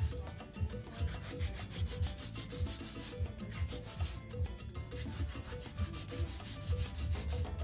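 Hand nail file rasping in quick back-and-forth strokes across a long artificial nail extension, shaping it.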